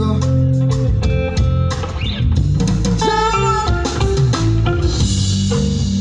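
Live band music amplified through a stage PA system: guitar and bass guitar over a drum kit, playing steady held notes.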